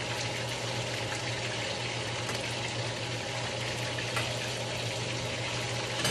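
Shrimp and spiralized zucchini frying in hot grease in skillets, a steady sizzle, with a steady low hum underneath and a few faint clicks as the food is stirred.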